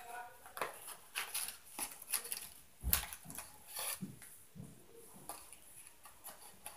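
A run of irregular light clicks and knocks, with a heavier thump about three seconds in.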